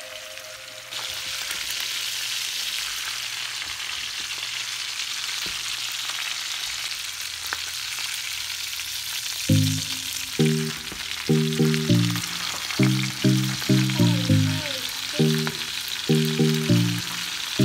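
Oil sizzling steadily as two whole aweoweo (Hawaiian bigeye fish) pan-fry with garlic. The sizzle starts abruptly about a second in, and rhythmic music comes in over it about halfway.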